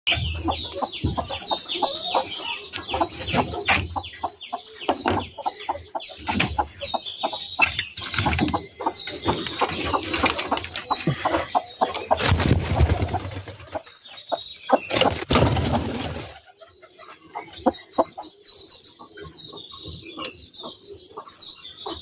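Newly hatched chicks peeping rapidly and continuously, with a broody Aseel hen clucking low beneath them. Two bursts of rustling and wing flapping come about halfway through, and the peeping thins out in the last few seconds.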